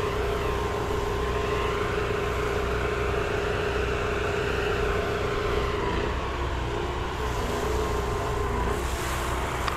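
Small petrol engine of a soft-wash spray rig running steadily, with the hiss of a spray gun putting roof-cleaning mix onto a roof.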